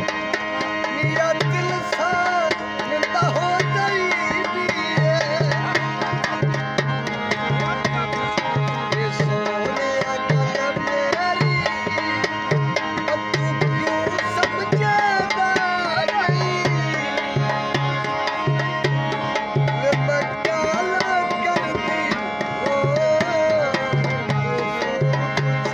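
Live Punjabi folk music in the dohre mahiye style: a tabla-type hand drum keeps a steady repeating low stroke under held drone notes and a wavering, ornamented melody line.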